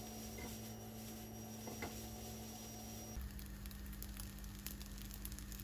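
Fried rice sizzling in a frying pan over a gas burner, with light crackles that grow denser after about three seconds, over a steady low hum.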